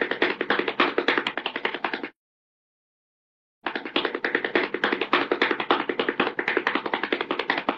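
Hanna-Barbera cartoon running sound effect: a rapid patter of light taps like scampering feet. It stops about 2 seconds in, then starts again after a second and a half of silence.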